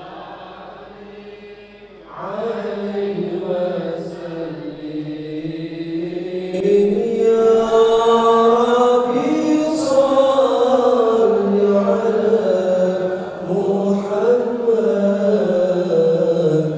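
A man chanting a melodic devotional recitation into a microphone, with long held notes that glide up and down; it starts faint and grows louder about a third of the way in.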